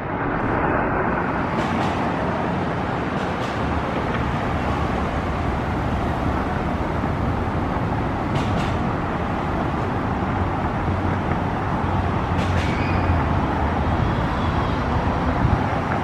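Steady road traffic noise: a continuous rush of passing vehicles with a low engine hum underneath, and a few faint ticks.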